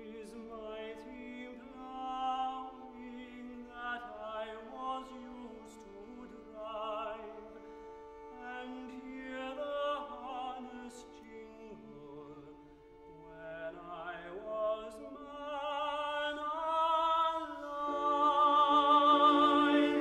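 A tenor singing a classical art song with vibrato over string accompaniment, the music swelling louder in the last few seconds.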